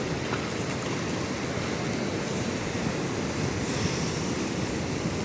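Pacific surf washing in a steady rush at high tide, with wind buffeting the microphone; a brief burst of higher hiss about four seconds in.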